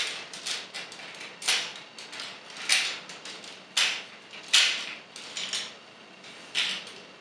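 Plastic clicks and knocks from a Robots in Disguise 2001 Megatron action figure being handled, as its parts are pegged and its joints moved: about eight sharp clicks at uneven intervals, roughly one a second.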